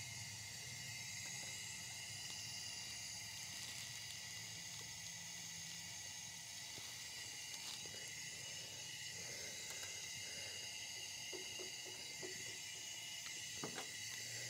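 Faint steady high-pitched hiss, with a few light clicks near the end.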